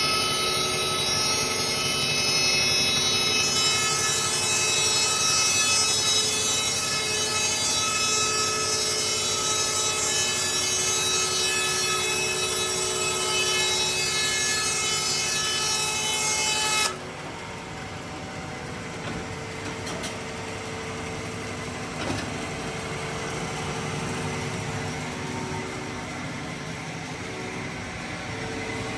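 Trak Met TTS 800 horizontal bandsaw running with a steady whine made of many held tones. About 17 seconds in the sound drops suddenly to a quieter, lower machine hum.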